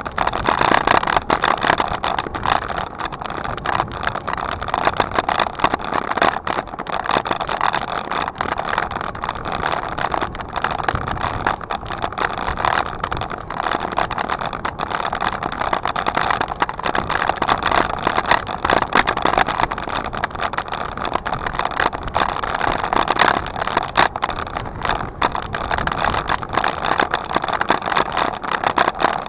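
Riding noise on a moving bicycle: steady rushing of wind and tyres with frequent small rattles and knocks.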